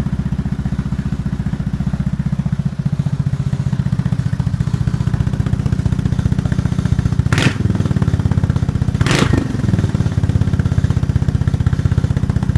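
SYM GTS 300 Evo scooter's single-cylinder four-stroke engine idling through an aftermarket exhaust, with a steady fast throb. About seven and a half and nine seconds in, the throttle is blipped twice, briefly.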